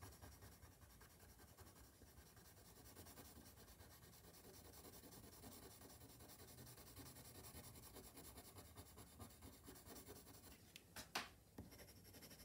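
Black Faber-Castell coloured pencil scratching faintly across paper in short, fur-like strokes, with a single sharp tap about eleven seconds in.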